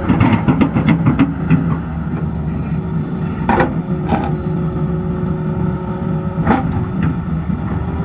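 Tata Hitachi excavator's diesel engine running steadily, with a quick run of clanks in the first second or so and a few separate knocks later on.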